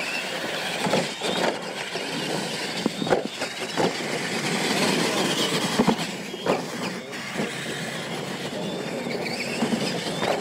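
Radio-controlled monster trucks racing on a dirt track: motors whining and tyres churning in the dirt, with several sharp knocks as the trucks hit and land off the ramps.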